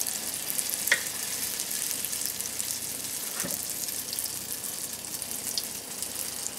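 Bofrot dough balls deep-frying in a saucepan of hot oil: a steady sizzle with fine crackling, while more dough is dropped in by hand. A sharp click comes about a second in.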